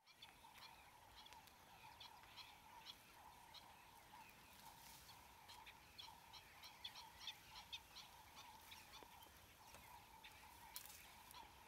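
Faint chorus of wild birds: many short, repeated high calls over a steady band of lower chirping.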